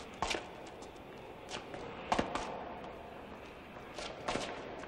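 A few sharp knocks and thuds at uneven intervals, the loudest about two seconds in, over a steady low background hum.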